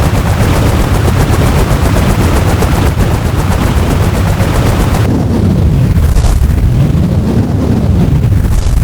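Synadrone noise synthesizer putting out loud, dense, crackling noise with a fast pulsing texture. About five seconds in, the high end is filtered away, leaving a low rumbling noise with slow pitch sweeps running through it.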